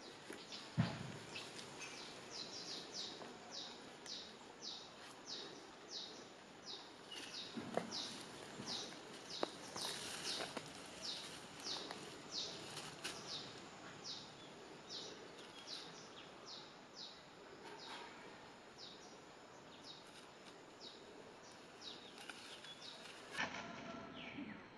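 Forest ambience: a high, falling chirp repeated about twice a second, thinning out in the later part. Occasional brief rustles and thumps of movement in dry leaf litter, the sharpest about a second in.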